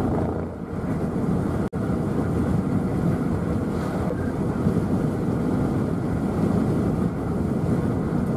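Steady road and wind noise of a moving vehicle, heard from inside, a low rushing rumble that cuts out for an instant near two seconds in.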